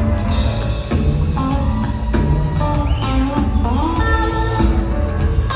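Live rock band playing an instrumental break with no vocals: an electric guitar lead with bent notes over bass, drums and keyboards, recorded from the audience.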